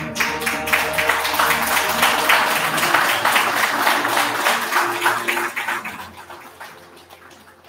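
An audience applauding over soft background music. The clapping starts suddenly and dies away over the last couple of seconds.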